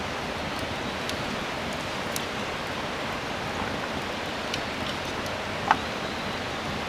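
Steady rain falling, an even hiss, with scattered sharp ticks and one louder tick a little after five seconds in.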